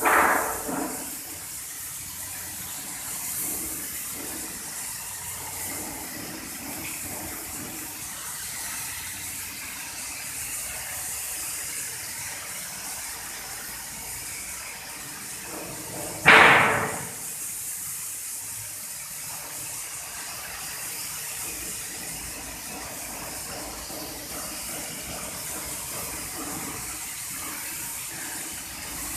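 Airless paint sprayer hissing steadily as it sprays paint onto a wall, with two short louder surges of noise, one at the very start and one a little past halfway.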